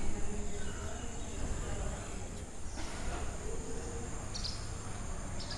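Steady high-pitched buzz of an insect chorus, with a low rumble underneath.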